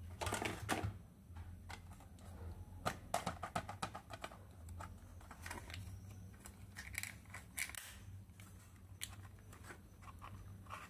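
Small plastic toy pieces and packaging being handled: irregular clusters of light clicks and taps, busiest a few seconds in and again past the middle.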